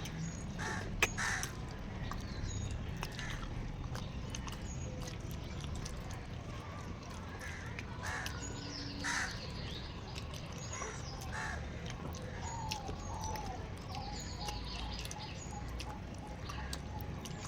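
Birds calling, with repeated crow-like caws and chirps, over a steady low background, with scattered faint clicks.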